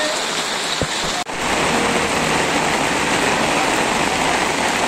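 Heavy rain pouring down steadily, a loud even hiss with a brief dropout just over a second in, then continuing with a fuller, deeper rush.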